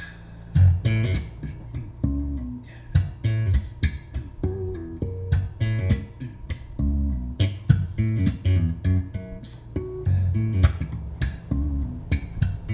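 Music played back through DLS RCS6.2 component car speakers: plucked guitar notes over a strong bass line, getting much louder about half a second in.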